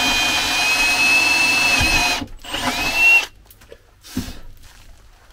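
Milwaukee M18 ONEDD2 cordless drill/driver boring into chipboard with a twist bit: a steady motor whine for about two seconds that then stops. After a short pause comes a second, shorter run, with a whine that rises in pitch, and then it stops again.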